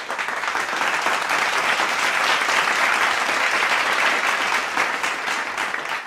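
Audience applauding: many hands clapping at once in a steady, dense patter.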